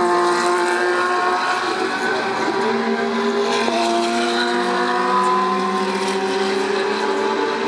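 GT3 race car engines running at speed on the circuit. The engine note holds with a sudden step in pitch about four seconds in.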